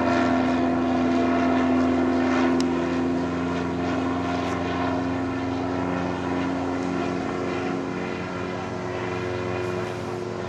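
Titan Tornado light aircraft's propeller engine running steadily in a high-speed flyby, slowly fading as it passes.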